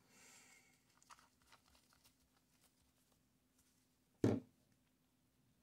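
Faint handling sounds of gloved hands with a small ink pad and ink bottle: light rustles and small clicks, then one sharp knock a little past four seconds in.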